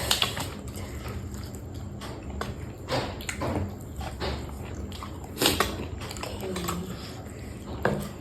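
A person eating close to the microphone: biting and chewing with scattered short clicks and crunches.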